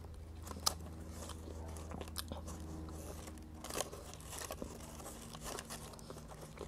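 A person chewing a bite of a sandwich on a crusty bread roll with the mouth closed: faint, scattered small crunches and mouth clicks, the sharpest about two-thirds of a second in.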